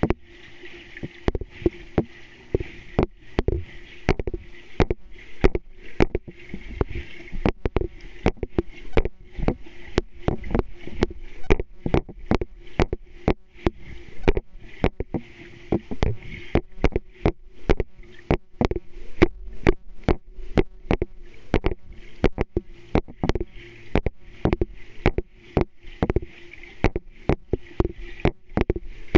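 Sound picked up underwater in a swimming pool: frequent irregular clicks and knocks, several a second, over a steady low hum, as a swimmer kicks through the water.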